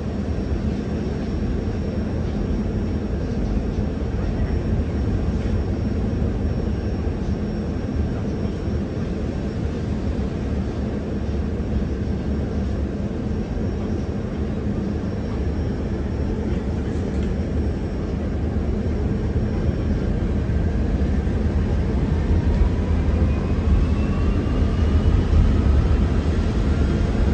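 Cabin of a KAMAZ-6282 electric bus: a steady low rumble, then over the last several seconds the electric traction motor's whine rising in pitch as the bus gathers speed.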